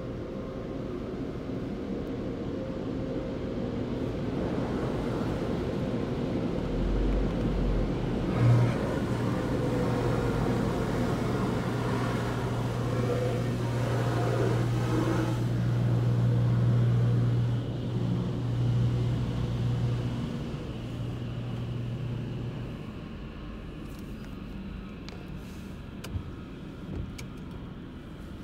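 Car creeping forward into an automatic car wash bay, heard from inside the cabin: a steady low rumble. A low steady hum joins about eight seconds in, grows louder, then fades out a little after twenty seconds.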